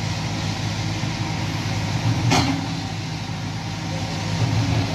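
Kobelco hydraulic excavator's diesel engine running steadily, with one sharp knock a little over two seconds in.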